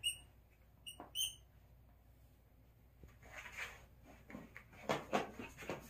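A small poodle scratching and rustling at its padded floor mat and bedding as it paws and noses into them, a series of scratchy strokes starting about halfway through. Near the start come a couple of short, high squeaks.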